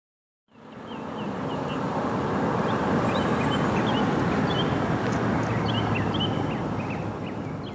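A steady low rumble with small birds chirping over it, fading in just after the start and fading out at the end.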